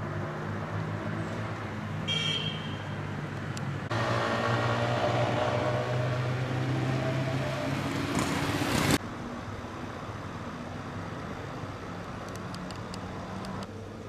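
Street traffic sound with a steady motor-vehicle engine hum and a short high beep about two seconds in. A louder stretch of vehicle engine noise runs from about four seconds and cuts off suddenly near nine seconds.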